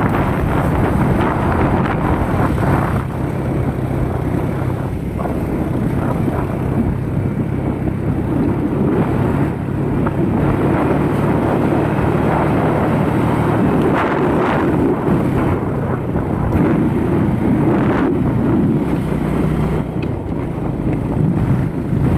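Wind buffeting the microphone over the steady low hum of a moving vehicle.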